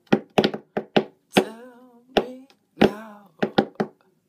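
A man singing two short wavering sung phrases over his own hand percussion: sharp slaps and taps of his hands on a hard surface in an uneven rhythm.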